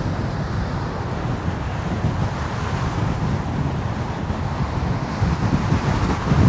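Wind buffeting the microphone: a steady, gusting low rumble with no clear tone in it.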